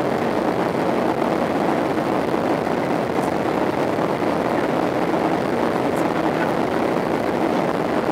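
Steady cabin noise inside a Boeing 737-800 in flight: the even rush of engines and airflow, with faint ticks about three and six seconds in.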